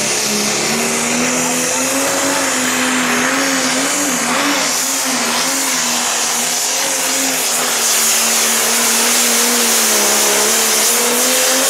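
Turbocharged diesel engine of a red International Pro Stock pulling tractor running flat out under the load of the pulling sled. It is a loud, steady drone whose pitch wavers slightly, with a high whine over it.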